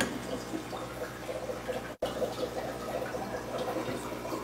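Thick red chamoy sauce being spooned and poured over a stack of tortilla chips, running and dripping back into the bowl, with a brief cut to silence about halfway through.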